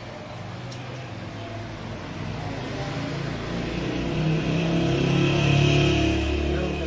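A motor vehicle's engine growing louder as it approaches, loudest about five or six seconds in.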